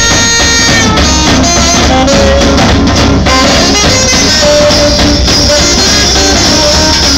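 Live swing jazz band playing, with a saxophone holding notes over a drum kit.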